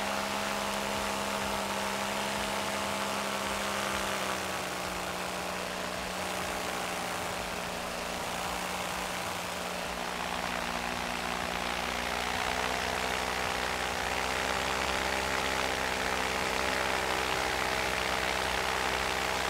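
Paramotor engine and propeller running steadily in flight, with wind rushing past. The engine note sags slightly a few seconds in and climbs a little again past the middle, as the throttle is eased and opened.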